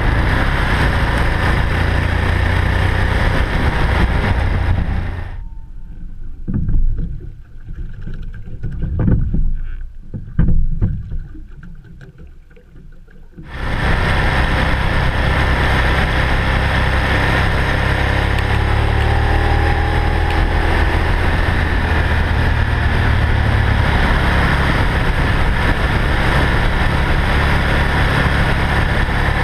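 Motorcycle at road speed heard from a camera mounted on its fairing: heavy wind rush on the microphone with the engine's drone underneath. About five seconds in the sound drops to a muffled low rumble with a few dull thumps for some eight seconds, then the full wind and engine noise comes back.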